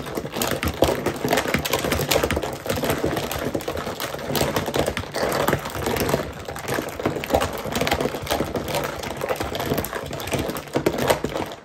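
A spoon stirring ice in a clear plastic pitcher of pineapple-and-chia water: a rapid, continuous clatter of ice and spoon knocking against the pitcher's sides, which stops near the end.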